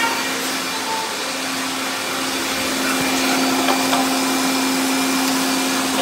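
Many robot vacuum cleaners running at once, making a steady whirring of motors and brushes. A steady low hum in it grows louder about two seconds in.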